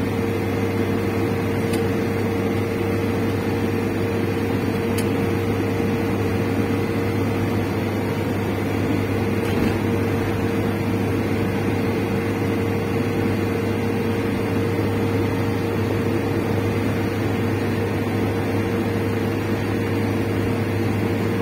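Steady running noise of a car driving at speed, heard from inside the cabin: road and engine noise with a constant low drone and a steady higher hum.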